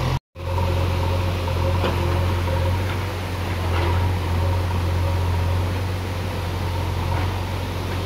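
JCB backhoe loader's diesel engine running steadily, with water rushing over rocks underneath. It starts just after a brief gap of silence near the start.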